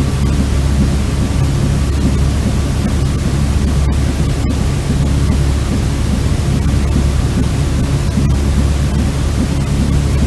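Steady, unchanging white noise for soothing a baby to sleep, heaviest in a deep low rumble with a thinner hiss above.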